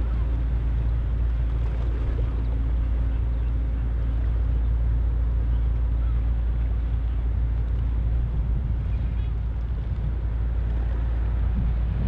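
Low, steady engine rumble of a passing LNG-powered tanker, with a higher hum in it that fades about two-thirds of the way through.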